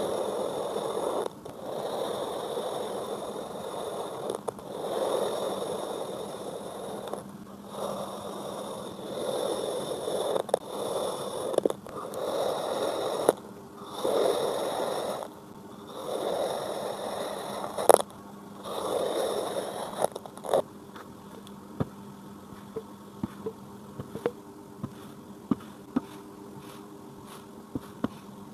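Kinetic sand being worked by hand: a run of gritty scraping, crunching strokes, each a second or two long with short pauses between them. About twenty seconds in they stop, leaving only scattered faint ticks and crumbles.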